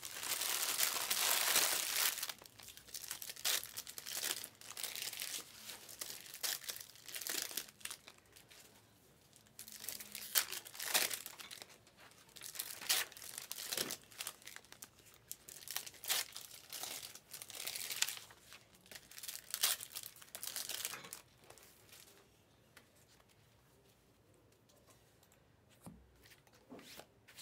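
Trading-card pack wrappers being torn open and crinkled, with cards handled and stacked, in a string of short rustling bursts that thin out near the end.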